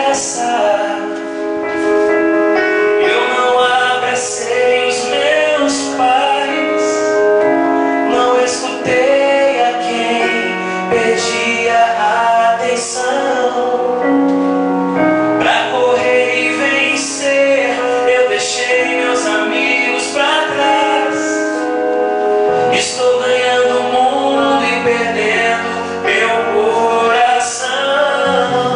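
Background music: a Portuguese-language Christian pop song with keyboard, drums and singing.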